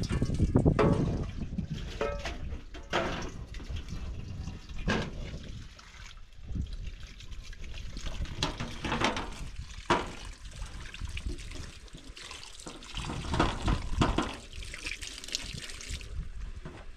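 Tap water running and splashing into a stainless-steel sink as a plate and then a pot of cut potatoes are rinsed under it, with irregular knocks of the dishes against the sink.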